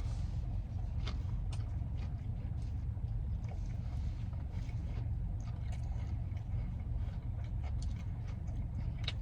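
Soft chewing with small mouth clicks over a steady low rumble.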